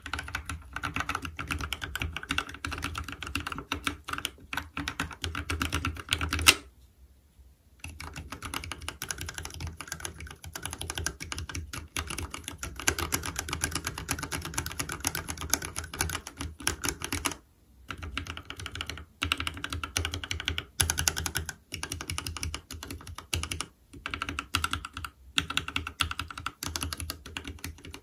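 Fast typing on a Keychron K6 fitted with C3 Equalz Tangerine v2 67 g linear switches, a dense run of keystroke clacks. The first run, on the top two rows, is switches lubed with Krytox 105 and filmed. After a pause of about a second, the typing moves to the lower rows, which are unlubed stock switches, with a few brief breaks.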